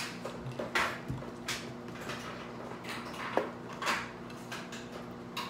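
Short crackling and rustling noises, roughly one a second, from hands breaking and peeling boiled crawfish and crab shells, over a faint steady hum.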